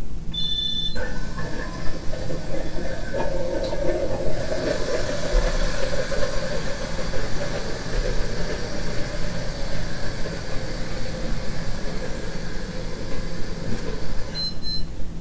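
Battery-powered 1993 Lego Duplo toy train running on a test drive: its small electric motor and freshly greased plastic gears give a steady whir. A short high beep sounds about half a second in and another near the end.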